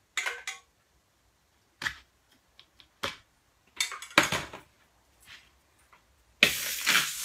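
A few light clinks and knocks of a spoon and a metal künefe plate. About six seconds in, the buttered kadayif plate goes onto the hot cooktop and starts sizzling loudly as the butter hits the heated metal.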